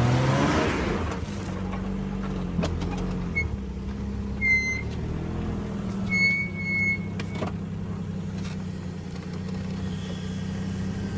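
Jeep Cherokee XJ engine running at low revs as it crawls over rock, the revs rising in the first second and then holding steady. Two short high squeaks about four and a half and six and a half seconds in.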